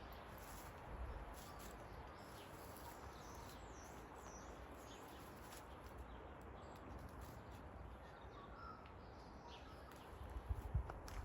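Forest ambience: scattered bird calls, a few quick gliding chirps and a short whistle, over a steady soft background hiss. A few footsteps thud on the path near the end.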